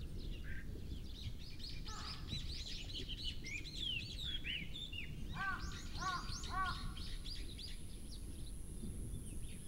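Outdoor bird ambience: many small birds chirping throughout, with a crow cawing about two seconds in and three times in quick succession past the middle, over a low steady background rumble.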